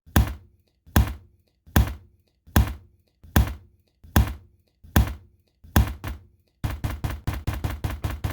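Heavy thumps in an even beat, about one every second, switching about six and a half seconds in to a faster run of about four a second.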